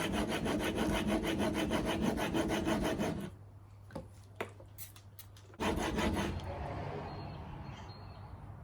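Steel chisel bevel pushed rapidly back and forth on a coarse, wet sharpening stone in a honing guide, a rhythmic scraping rasp, grinding the bevel down to a single 25-degree face. The strokes stop about three seconds in, with a few light clicks. A softer, fading rasp starts near six seconds.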